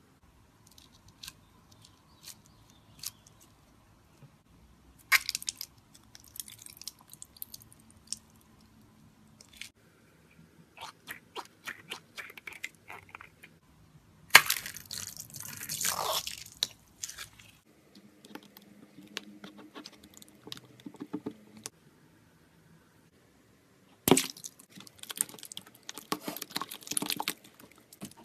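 Slime being squeezed and kneaded by hand: bursts of sticky clicking and crackling, separated by short pauses.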